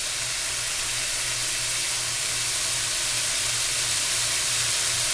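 Chicken breast tenders sizzling as they sear in a pan on high heat: a steady hiss.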